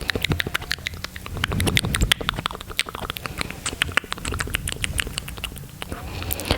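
Close-miked ASMR mouth sounds: a rapid, irregular run of wet clicks and smacks from the tongue and lips.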